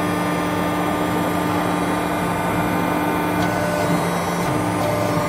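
WC67K-160-ton hydraulic press brake's hydraulic pump and motor running with a steady hum.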